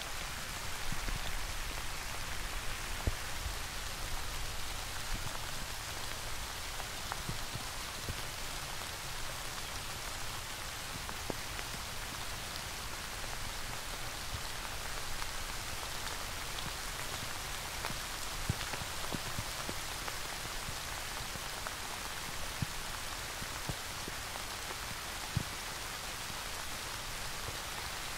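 Steady rain falling, an even hiss with scattered drops and a few louder single drops.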